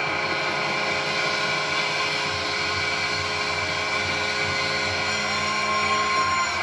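Hockey arena crowd cheering a goal, with a steady goal horn held over the noise, heard through a television's speaker.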